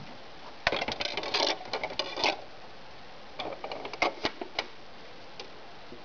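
Plastic clicking and rattling in two bursts, about a second in and again about three and a half seconds in, from a microwave-crazed CD being handled and loaded into a Sanyo boombox's top-loading CD player.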